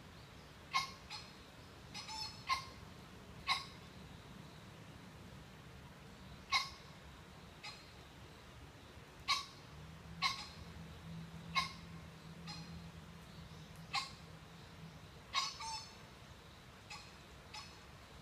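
Green pheasant giving short, sharp calls, a dozen or more at irregular intervals, some in quick pairs.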